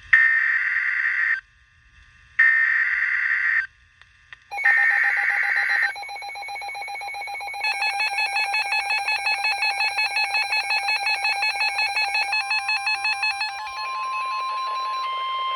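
Three bursts of SAME digital header data from a NOAA Weather Radio alert, each about a second and a half long. A rapidly pulsing electronic alert tone follows, then a steady 1050 Hz warning alarm tone from about twelve seconds in, signalling that a new warning is being broadcast.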